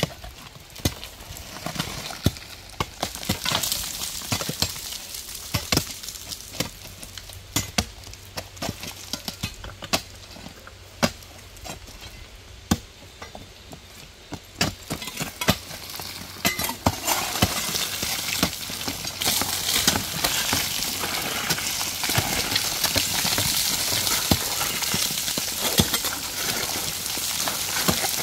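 Rock cracking and clattering as it is broken loose from a soft, fractured cliff face: scattered sharp knocks and clicks of stone on stone, which about two-thirds of the way in thicken into a steady crackling rush of small stones and grit.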